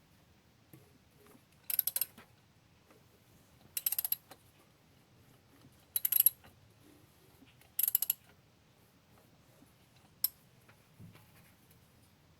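Four short bursts of rapid metallic clicking about two seconds apart, then a single click about ten seconds in, from metal parts of a 7-bolt 4G63 engine's bottom end being worked by hand; the rod bearing on cylinder 3 has failed.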